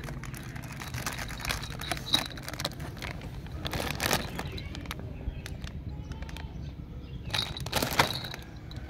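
Clear plastic toy packaging rustling and crinkling as bagged toys are handled, in irregular crackles with a few louder crinkles, over a steady low rumble.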